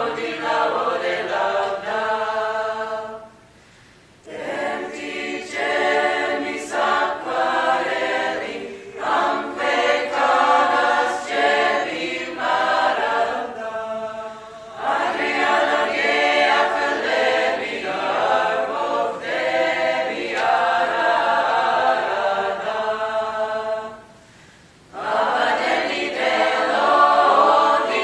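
Mixed a cappella choir singing a Gurian three-part polyphonic folk song from the Republic of Georgia, in dense, dissonant harmony. The sung phrases break off briefly twice for a breath, about three seconds in and near the end.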